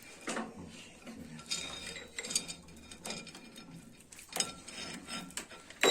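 Metal tools and machine parts being handled: scattered light clinks and knocks, with a few sharper knocks about four and a half seconds in.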